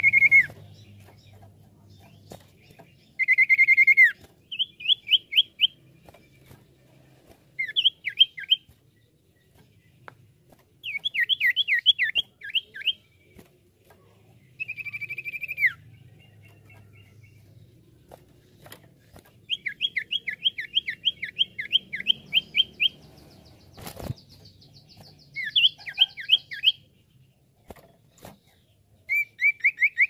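Common iora (cipoh) singing: long, level whistles alternating with quick runs of sharp, falling notes, in phrases separated by short pauses. A single sharp click about two-thirds of the way through.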